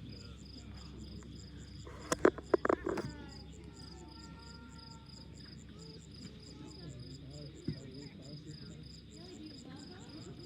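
Crickets chirping steadily in an even, high pulsing rhythm, with a quick cluster of five or so sharp pops about two seconds in.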